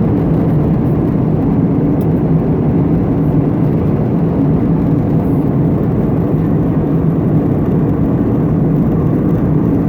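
Steady drone of an Airbus A321neo's engines and airflow heard from inside the passenger cabin, a deep even rumble that holds constant throughout.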